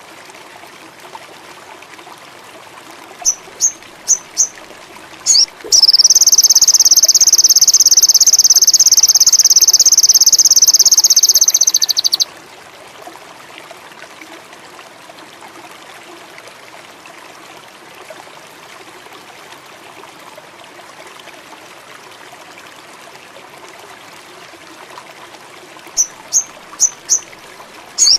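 Indigo flycatcher (sogon) song from a lure recording: four short high chirps, then a loud, rapid high-pitched trill held for about six seconds, over a steady hiss like running water. The same four chirps come again near the end as the phrase repeats.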